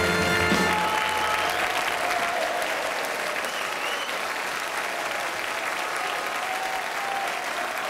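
A theatre audience applauding, steady clapping throughout; the pit orchestra's final held chord stops under a second in.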